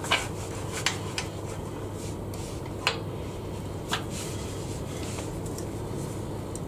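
About five short, sharp metal clicks and knocks, spread over several seconds, as a woodturning lathe's tool rest is moved and set against the stopped work, over a steady low hum.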